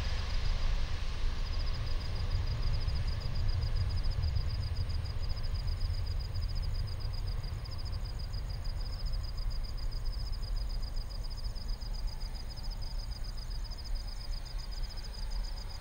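Low rumble of the departing Airbus A340-600's four Rolls-Royce Trent 500 engines, slowly fading into the distance. From about a second in, a steady, fast, high-pitched chirping runs alongside it.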